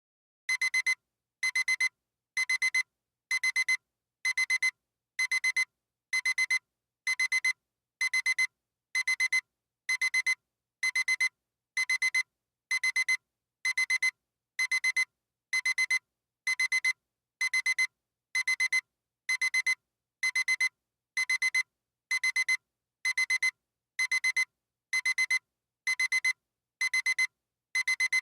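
Digital alarm clock beeping: short bursts of rapid high-pitched beeps, about one burst a second, in a steady, unchanging rhythm.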